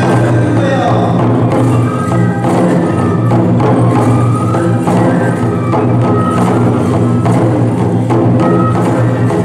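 Traditional tiger-dance (toramai) festival music: large taiko drums beaten in a steady rhythm, with clacking strikes and short held tones from bamboo flutes over it.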